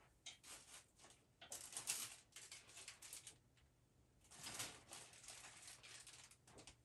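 Quiet rustling and clicking of paper craft supplies being handled while someone rummages for them, in two main bursts, about a second and a half in and again past the four-second mark.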